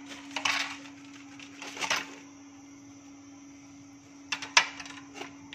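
Kitchen sounds: a few light clicks and knocks of utensils or dishes, about half a second in, near two seconds and twice in quick succession past four seconds, over a steady low hum and a faint hiss of hot oil still sizzling in the karahi.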